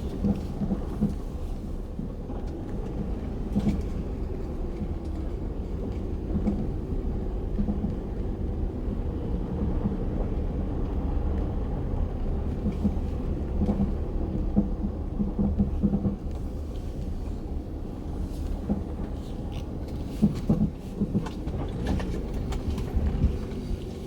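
Ford Edge driving over a rough, broken-up road: steady low road rumble with irregular knocks from the front suspension every few seconds. The knocking comes from a worn-out front sway bar link, not the strut.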